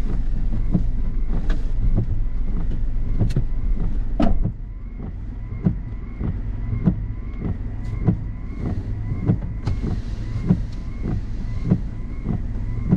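Stationary car with its engine idling, a steady low hum. A sharp knock comes about four seconds in, after which the sound is quieter, and a regular tick repeats roughly every second.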